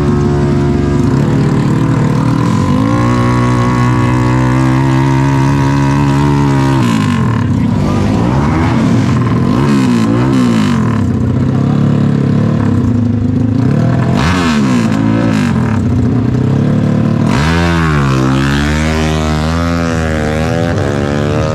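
Tuned single-cylinder underbone drag motorcycle revved hard on the start line, the revs rising and falling again and again. Near the end it launches and revs out as it pulls away.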